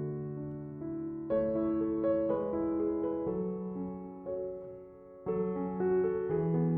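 Background piano music: slow chords of notes that ring and fade, with the sound dying away about five seconds in before a new chord strikes.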